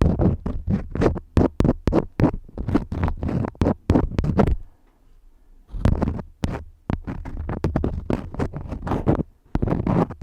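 Crayons scribbling in quick, short, scratchy strokes, about three or four a second, with a pause of about a second midway.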